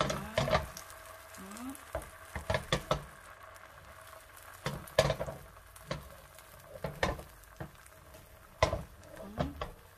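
Thin rice-flour batter for bánh cuốn sizzling in an oiled frying pan while the pan is swirled to spread it, with a dozen sharp metal knocks and clicks of the pan shifting on the stove grate.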